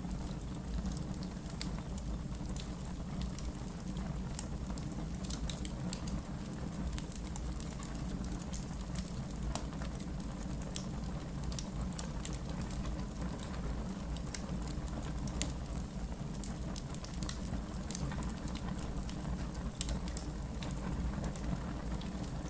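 Wood fire burning in a fireplace: a steady low rumble of flame with many sharp, irregular crackles and pops from the burning wood.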